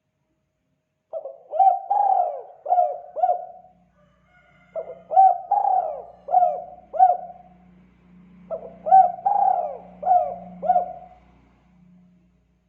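Spotted dove cooing: three phrases of about five coos each, a few seconds apart, in the 'kuk 2' call pattern.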